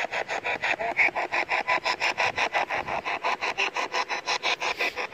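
Spirit box sweeping through radio stations: a fast, even chatter of static chopped into short bursts about eight times a second.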